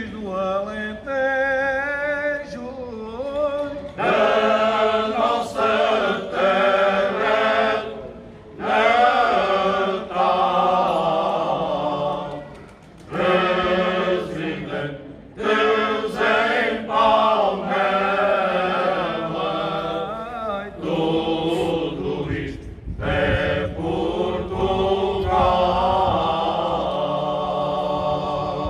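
Male choir singing cante alentejano unaccompanied, in long, drawn-out phrases with short pauses between them. The singing grows louder and fuller about four seconds in.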